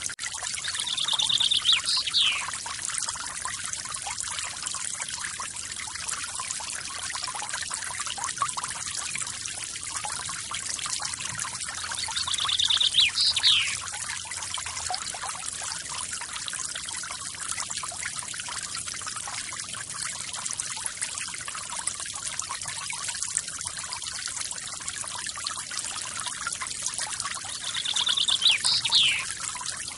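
Forest waterfall water splashing and trickling steadily. A bird calls three times, near the start, in the middle and near the end: each call is a quick trill followed by a sharp whistled sweep.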